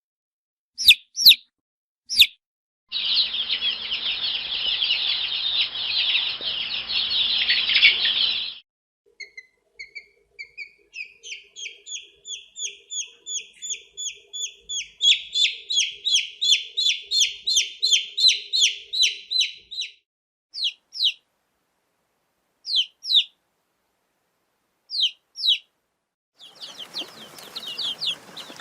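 Baby chicks peeping: a few single peeps, then many chicks cheeping together for about five seconds, then a steady run of short, falling peeps at about three a second for around ten seconds. Scattered single peeps follow, and many chicks cheeping together again near the end.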